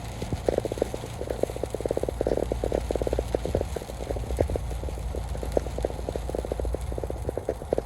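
Heavy rain, with dense, irregular drops tapping on a vehicle, over a low steady rumble from the vehicle on the road.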